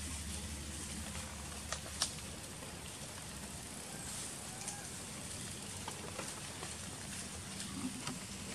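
Outdoor ambience among trees: a steady background hiss, two sharp snaps about two seconds in and a few fainter clicks later, with faint short chirps here and there.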